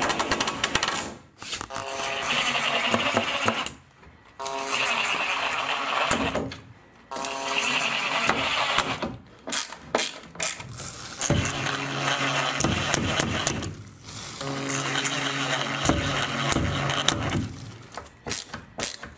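Cordless drill running in a series of short runs of one to three seconds with brief pauses, its motor whining as screws are driven to fasten the angle bracket of a 2x4 beam.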